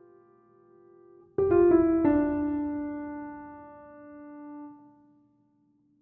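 Slow solo piano music: a held chord dies away, then new notes are struck about a second and a half in and again half a second later, ringing out and fading to silence near the end.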